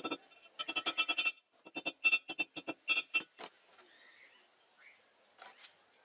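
Rapid hammer blows on a steel rebar rod resting on a small steel I-beam anvil, each strike ringing out metallically. The blows come in quick runs of about six or seven a second, pause after about three and a half seconds, and a few more come near the end.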